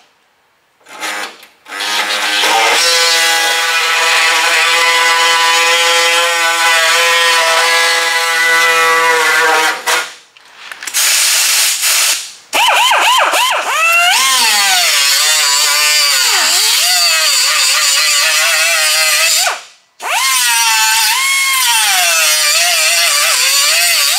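Pneumatic cut-off wheel cutting through the sheet steel of a car's quarter panel. It gives a high whine that holds steady for several seconds. After a few short stops, the pitch repeatedly sags and recovers as the wheel is pressed into the metal.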